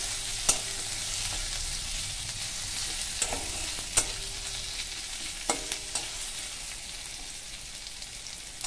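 Sliced onions sizzling in hot oil in a metal kadai, stirred with a metal spatula that clinks and scrapes against the pan a handful of times.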